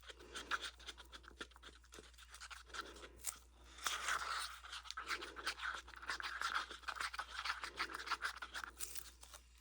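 Resin being mixed in a plastic cup: irregular scraping and ticking against the cup's sides, busier from about four seconds in.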